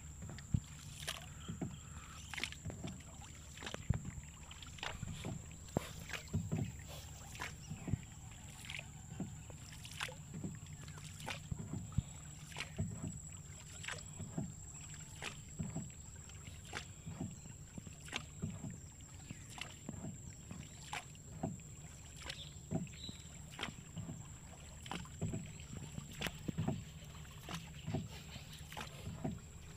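Small wooden boat being paddled on calm water: regular paddle strokes, about one and a half a second, over a steady low hum.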